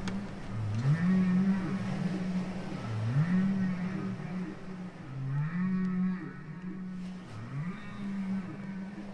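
A low wordless sung tone that slides up and holds for about a second, repeated evenly four times about two seconds apart.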